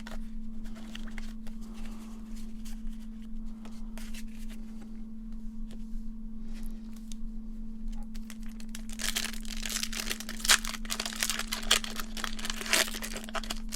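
Foil wrapper of a Pokémon Evolving Skies booster pack being handled and torn open. Soft rustling of foil and cards turns into loud, dense crinkling and tearing about nine seconds in.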